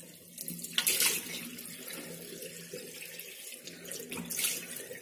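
Tap water running into a washbasin while cupped hands catch it and splash it onto the face to rinse off face wash, with louder splashes about a second in and again near the end.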